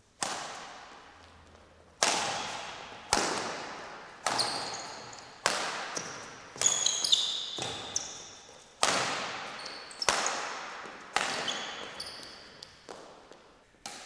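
Badminton racket strikes on a shuttlecock: about a dozen sharp hits, roughly one a second, each trailing off in a long echo. Short high squeaks come between some of the hits.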